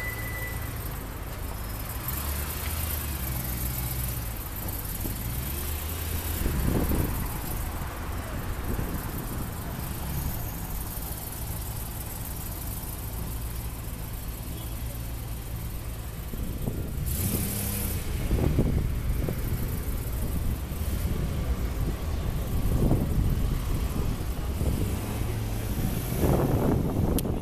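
BMW M3 E92's 4.0-litre V8 running at idle, with several brief louder swells in the engine and traffic sound over passing street traffic.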